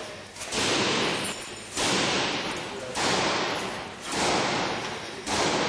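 Repeated blows of a long bar against a pane of security-film-coated glass, five hits about one every 1.2 seconds, each sharp hit trailing off over about a second. The cracked glass stays together in its frame rather than shattering out, the sign of the anti-burglary film holding it.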